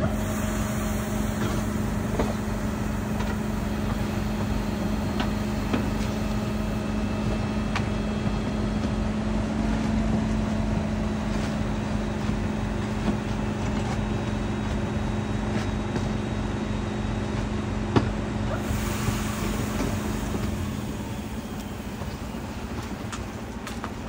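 Crane truck's engine running steadily, a low drone that powers the knuckle-boom crane, with a few sharp knocks over it; the engine sound drops and quietens about twenty seconds in.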